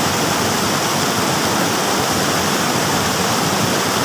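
A shallow, rocky river rushing over stones in small rapids: a steady, unbroken rush of water.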